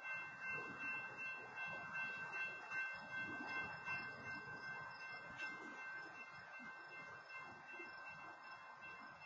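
Freight cars of a train rolling slowly over the crossing: a low, uneven rumble with irregular knocks, under a steady high-pitched tone.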